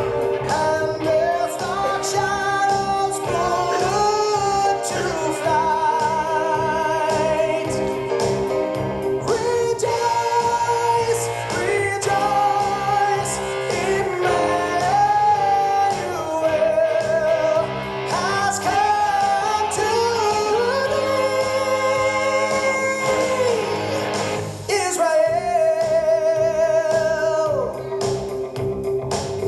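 A recorded song with singing over instrumental backing; the voice holds long notes with vibrato.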